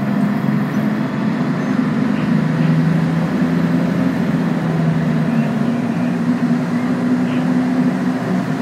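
Scania N113CRB city bus's 11-litre six-cylinder diesel engine running while the bus drives, heard inside the cabin from the rear seats. Its note drops about two seconds in and rises again after about five seconds.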